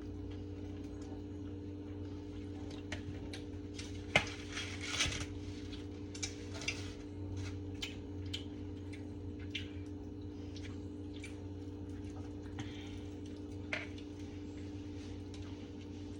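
Fork clicking and scraping against a plate during a meal, in scattered light clicks, the sharpest about four seconds in, over a steady low hum.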